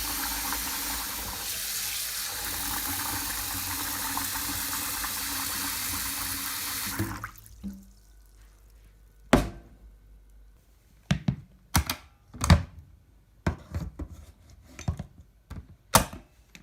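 Kitchen tap running into a sink, a steady rush of water that is shut off about seven seconds in. After it come scattered sharp clicks and knocks, a dozen or so over the last seven seconds.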